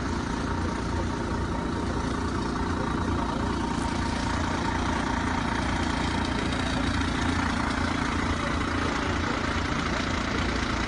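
A large vehicle's engine idling steadily.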